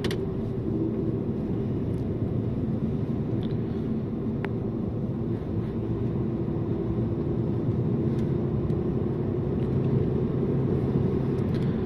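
Mercedes-Benz Actros truck driving at a steady pace: continuous engine drone and road noise inside the cab, with a few faint clicks.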